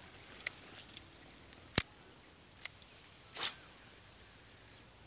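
A few sharp clicks, the loudest a little under two seconds in, and a short soft rush of noise about halfway through, over a faint steady high-pitched hiss.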